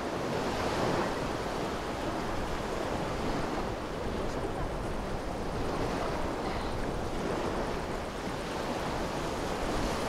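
Small waves washing onto a sandy shore in a steady surf wash, with wind buffeting the microphone.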